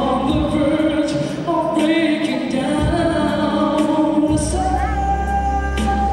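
A man singing into a handheld microphone over music with percussion, the bass coming in strongly about four seconds in.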